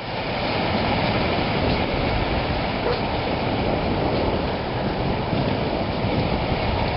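Floodwater rushing: a steady, unbroken rushing sound.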